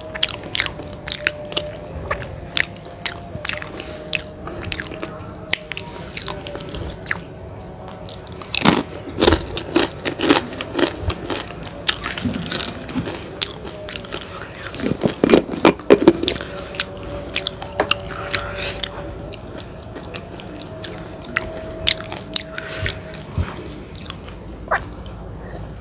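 A person chewing mie ayam, chicken noodles in spicy balado sauce: wet chewing with many short mouth clicks and bites, busiest through the middle, with a cluster of louder bites about 15 seconds in.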